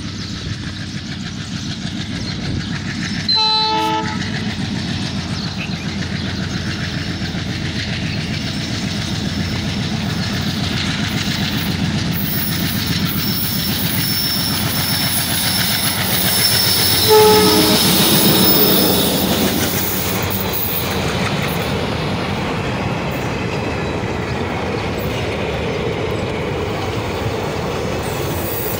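WDM3A diesel locomotive approaching and passing, its engine rumbling steadily and growing louder, with a short horn blast about three seconds in and a longer one around seventeen seconds. After that the passenger coaches roll past with wheels clicking over the rail joints.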